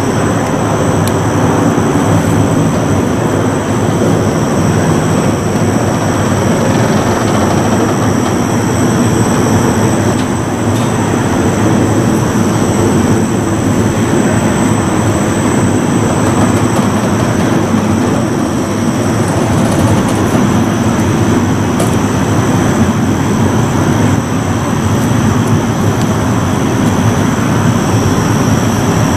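Steady mechanical rumble and hum of the Maxx Force roller coaster's ride machinery as a train is moved slowly along the track into its storage shed, with a faint steady high whine above it.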